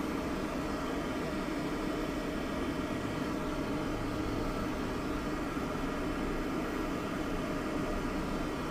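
XYZprinting Da Vinci Jr. 3D printer running as it lays down its first-layer test strip: a steady mechanical hum.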